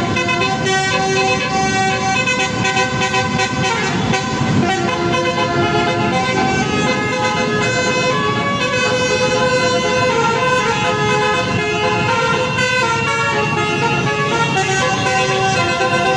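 A bus's basuri musical air horn plays a tune in a string of held notes that step up and down in pitch, with a low rumble underneath.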